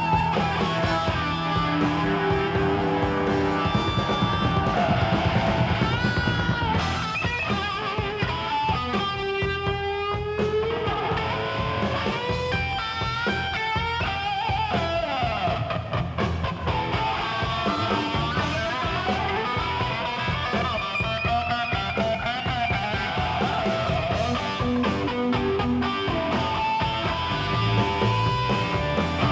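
Live hard-rock band: a Les Paul-style electric guitar plays a solo line full of string bends and wide vibrato over bass and drums.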